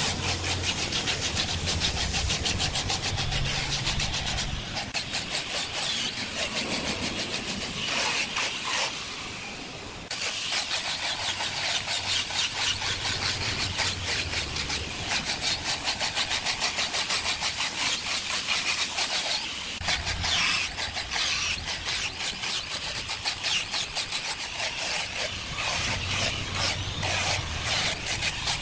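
Electric angle grinder with a sanding disc running against hardwood: a steady high motor whine over a rough, rapid rasping as the disc sands the carved surface. The sound eases off briefly just before ten seconds in, then comes back.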